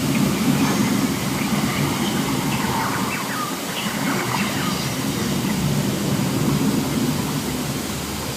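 Steady rumbling thunder and rain sound effects from a themed restaurant's volcano show, played through its sound system.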